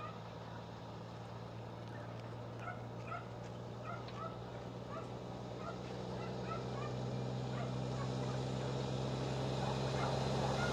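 Diesel engine of a road-train prime mover pulling double tanker trailers, a steady drone that grows louder as the truck approaches. Birds call in short repeated chirps over it through the first two-thirds.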